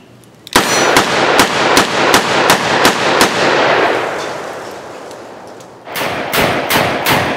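Smith & Wesson Performance Center 327 TRR8 .357 Magnum revolver firing eight quick shots of Double Tap 125-grain jacketed hollow-point ammunition, about three a second, emptying its eight-shot cylinder. A long echo trails off after the string. About six seconds in, another rapid string of revolver shots begins.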